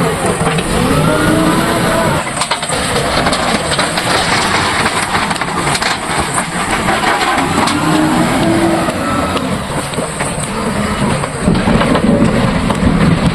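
A motor engine running loudly under heavy noise, its pitch rising and falling in slow revs several times.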